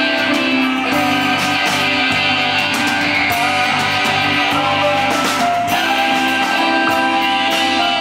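Live rock band playing, with electric guitars, bass guitar, drums and keyboard.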